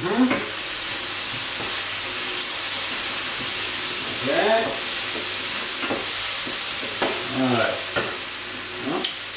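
Meat sizzling as it fries in a hot pan, a steady hiss, with a couple of short squeaky scrapes from a utensil stirring it, about four and seven seconds in.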